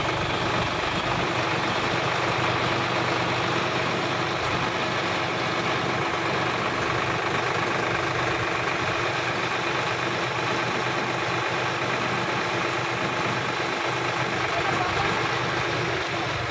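Sonalika DI 50 RX tractor's diesel engine running steadily at a constant speed.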